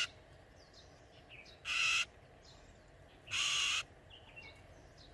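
Oriental magpie-robin giving harsh rasping screeches, twice, about a second and a half apart: the alarm calls of a frightened, freshly trapped bird. Faint short chirps of other birds come in between.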